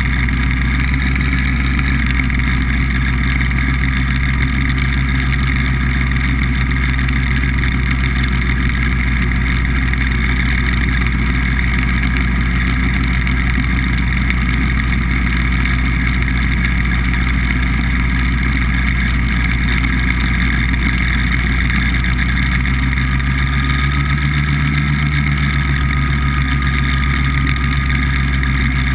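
BBV2+2 hovercraft running steadily at speed over ice: a loud, even engine and fan drone, with a brief shift in tone near the end.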